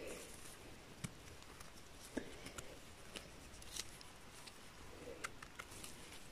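A small knife trimming and scraping a chanterelle mushroom held in gloved hands: a handful of faint, scattered clicks and scrapes.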